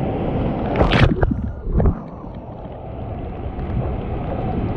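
Ocean water sloshing and splashing against a surfboard, close to a camera on the board's nose, with a sharp splash about a second in and a smaller one just before two seconds.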